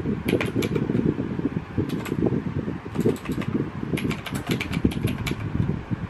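Rymek typewriter-style mechanical keyboard being typed on: quick runs of clicking keystrokes broken by short pauses, over a low rumbling noise.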